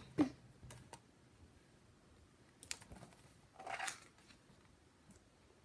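Faint handling noise: a few small clicks, then two short rustles about three and four seconds in.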